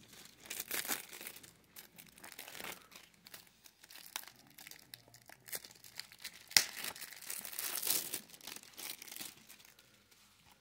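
Plastic shrink-wrap being torn and peeled off a DVD case, crinkling in irregular crackles, with a sharp snap about two-thirds through. The crinkling dies away near the end.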